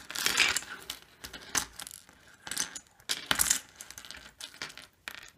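Small plastic Littlest Pet Shop toy accessories clicking and clattering against a stone countertop as a hand rummages through the pile, in several short bursts.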